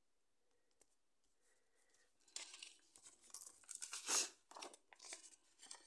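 Paper rustling and scraping as a sheet of thick craft paper with double-sided tape on it is handled and moved across the table. The sound is a run of short, scratchy bursts that starts about two seconds in and is loudest a little past the middle.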